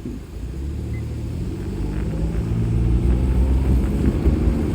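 A car's low, steady rumble of engine and road noise heard from inside the cabin, growing a little louder over the last couple of seconds.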